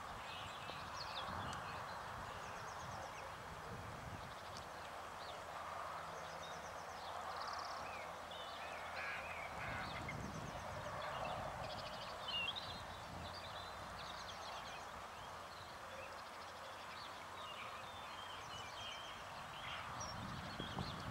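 Small birds chirping and trilling on and off over a steady outdoor hiss, with one brief low thump about twelve seconds in.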